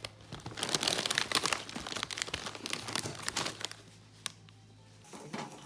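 Crinkling and rustling as something crinkly is handled: a dense run of irregular crackles from about half a second in, easing off after about four seconds.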